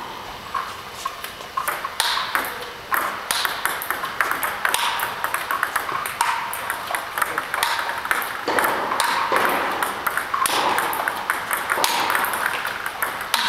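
Table tennis ball being fed by a robot and returned with forehand topspin: a quick, regular series of sharp clicks as the ball bounces on the table and is struck by the XIOM Janus DF 1.5 rubber on a Hallmark Aurora blade.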